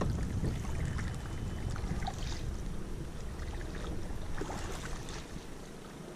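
Wind buffeting the microphone as low noise that eases off near the end, with the splash and drip of canoe paddle strokes in the water.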